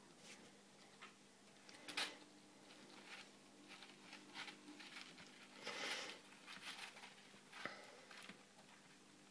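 Faint rustling of fabric with scattered light taps and scratches as kittens scramble and play on a blanket and cat bed, with a sharper tap about two seconds in and a longer rustle around six seconds in.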